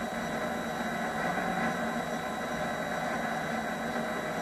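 MX-210V mini lathe running at steady speed while its tool turns a rubber block held in the chuck: an even mechanical whir with a thin, steady high whine.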